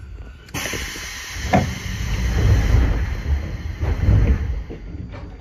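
A burst of compressed-air hiss from an Iyotetsu 3000 series electric train standing at a station platform. It starts suddenly about half a second in and fades after about four seconds, with a knock about a second in and a low rumble underneath.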